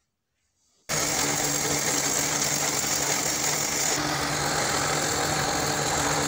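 Woodworking horizontal boring machine running steadily, a loud motor hum with hiss, used to bore the slots for the wings in a wooden aircraft fuselage. It comes in abruptly about a second in.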